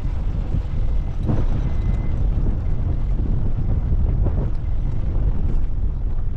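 Wind buffeting the microphone, a steady low rumble with no letup.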